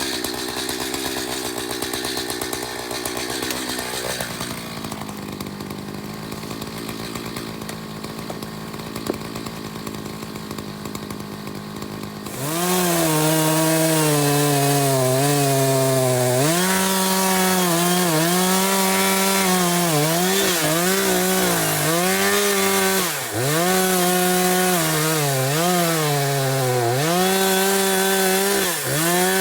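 Chainsaw idling, then opened up to full throttle about twelve seconds in and cutting into a large tree trunk. Its pitch dips and recovers repeatedly as the chain loads up in the cut and the throttle eases.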